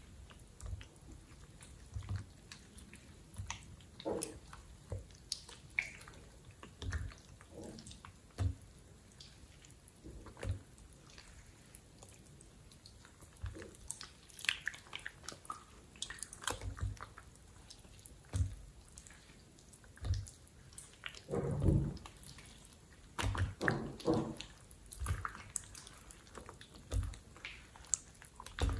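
Thick green slime being stretched, lifted and squeezed by hand in a glass bowl: irregular wet squelches and sticky pops as it folds and drips back into the bowl. There is a louder run of squishing about two-thirds of the way through.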